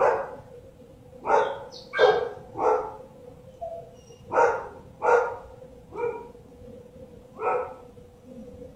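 A dog barking in single short barks, about eight of them at uneven intervals.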